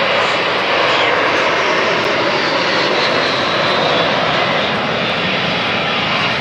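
Four jet aircraft in close formation flying past, their engines making a loud, steady rushing noise with a thin whine slowly falling in pitch.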